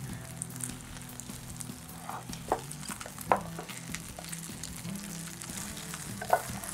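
Vegetable omelette sizzling in oil in a frying pan, with a few sharp taps and scrapes of a slotted spatula against the pan.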